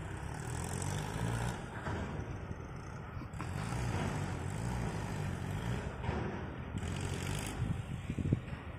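Tractor's diesel engine running steadily, a low and even sound.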